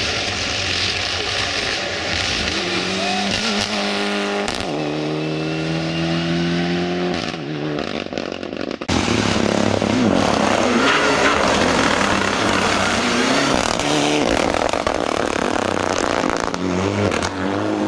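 Mitsubishi Lancer WRC rally car's turbocharged four-cylinder engine accelerating hard, revving up through the gears with a drop in pitch at each upshift. About nine seconds in the sound cuts abruptly to a louder, closer pass of the same car.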